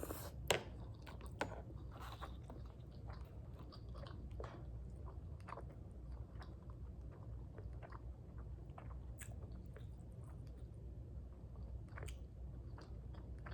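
A person chewing food, with soft wet mouth clicks and smacks throughout and a couple of sharper clicks in the first second and a half.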